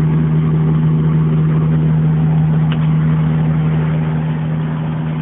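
A steady machine hum: one constant deep note with a fainter higher note above it, unchanging throughout.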